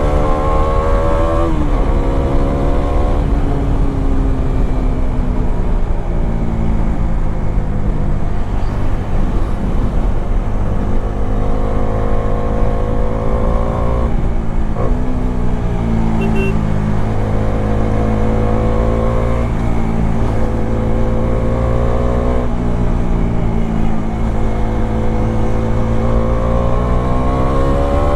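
Bajaj Dominar 400's single-cylinder engine heard from the rider's position on a highway. It revs up and drops in pitch at gear changes in the first few seconds, settles to a lower, steady cruise with another shift about halfway, then rises again under acceleration near the end. A heavy rumble of wind runs underneath.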